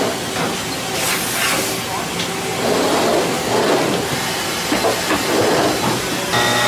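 Mazak Integrex e-420H-ST multitasking CNC machine moving its milling head and turret, with hissing and mechanical noise and a louder burst of hiss about a second in. Near the end a steady whine of several tones sets in as the milling spindle runs.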